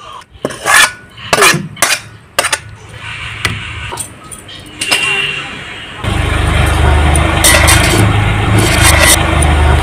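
Several sharp clinks of a steel ladle against an aluminium cooking pot in the first few seconds. About six seconds in, a loud, steady rumble with hiss takes over.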